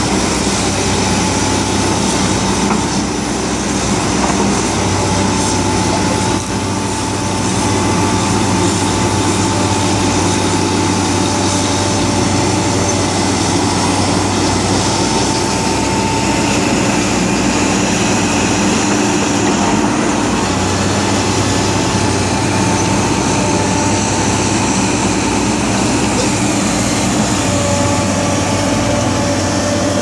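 Diesel engines of a Caterpillar D5K crawler bulldozer and a crawler excavator running steadily under working load, a continuous drone with a steady whine over it.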